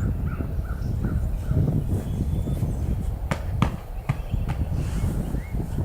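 Wind buffeting the microphone with a steady low rumble, while a bird calls in short repeated notes at the start and again near the end. Two sharp knocks come midway.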